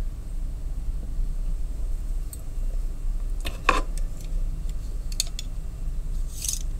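Scattered small clicks and knocks of a metal vernier caliper and a knife being picked up and handled, the loudest a knock about three and a half seconds in, with a brief scrape near the end. A steady low hum runs underneath.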